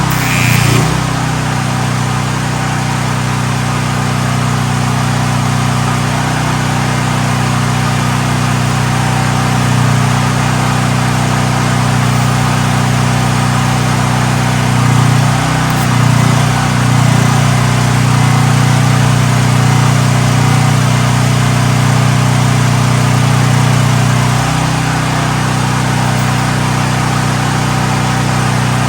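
Portable generator engine running at a steady speed, with a steady low hum and hiss; its note wavers briefly about halfway through and changes slightly near the end. It is the only power source for the TIG welder.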